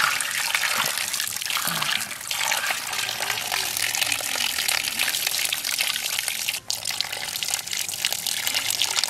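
A steady stream of water poured onto climbing perch in a shallow clay dish, splashing over the fish as they are rinsed, with a momentary break about two-thirds of the way through.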